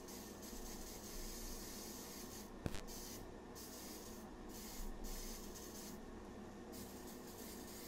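Aerosol wax and grease remover hissing out in a string of sprays with short pauses, wetting down a plastic pistol grip. There is one sharp click about two and a half seconds in, over a steady low hum from the portable paint booth's fan.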